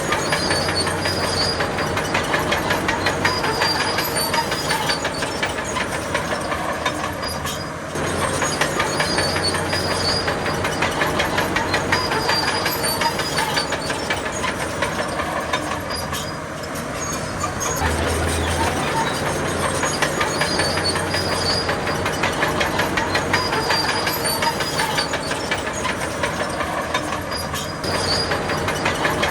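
Bulldozer running under load: its diesel engine drones while the steel tracks clank in a rapid, even rhythm. The sound eases off briefly a few times and then picks up again.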